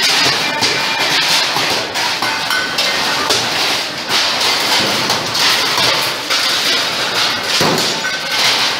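Steady, dense clatter of stainless-steel plates and bowls being thrown and stacked into big steel tubs, with short metallic rings among the crashes.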